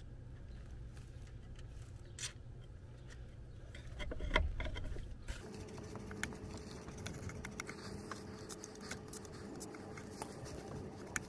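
A short hiss of aerosol lubricant sprayed onto a rubber exhaust hanger, then hands working the hanger off its rod: a knock and rumble about four seconds in, followed by scattered small clicks and rattles.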